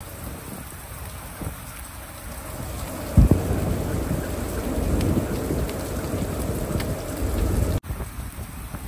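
Heavy rain falling steadily on wet pavement. About three seconds in a loud low crack of thunder breaks in and rolls on as a deep rumble, building until the sound breaks off suddenly shortly before the end.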